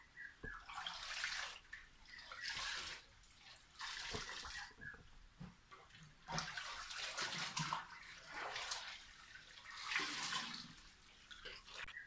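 Water sloshing and splashing in a top-load washing machine tub as hands stir it, in repeated swishes about every one to two seconds.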